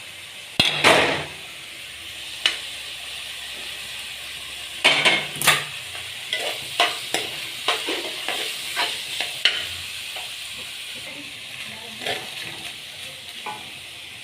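Food sizzling in a frying pan while a utensil stirs it, scraping and knocking against the pan in short clusters over a steady sizzle.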